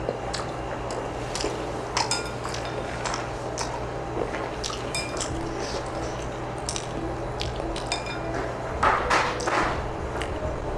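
Cutlery clicking and clinking against dishes during a meal, in scattered separate strikes, some with a short metallic ring, and a louder noisy cluster of eating sounds about nine seconds in. A steady low hum runs underneath.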